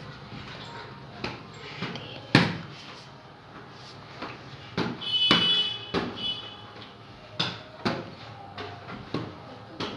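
A basketball bouncing on a hard tiled floor in a small room: irregular thumps, the loudest about two and a half seconds in. A short high tone sounds about five seconds in.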